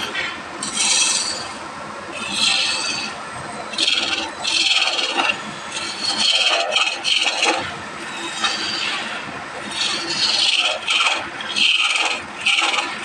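Wood being worked by hand with a scraping tool: repeated rough scraping strokes, roughly a second or so apart and somewhat uneven.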